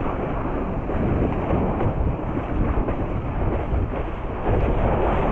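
Storm wind blasting the microphone: a dense, steady rush of wind noise that gets a little louder about four and a half seconds in.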